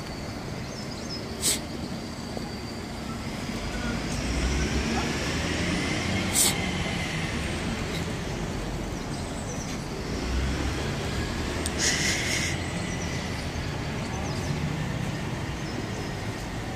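Road traffic around the square: a steady hum of passing cars and buses whose low rumble swells and fades in the middle. A few short sharp clicks, and a brief hiss about three-quarters of the way through.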